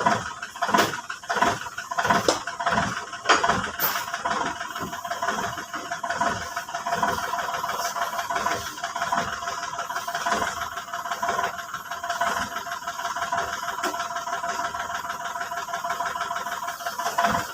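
Backhoe engine running steadily with a rattle. A string of knocks and clanks comes in the first few seconds, and scattered ones follow.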